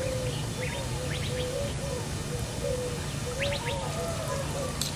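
Birds chirping and calling over and over, with short high chirps mixed in and a steady low hum underneath.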